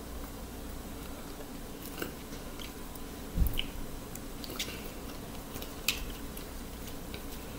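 Soft squishing of cooked ramen noodles being lifted and stirred on a paper plate, with scattered light clicks and taps of the utensil and one duller knock about three and a half seconds in.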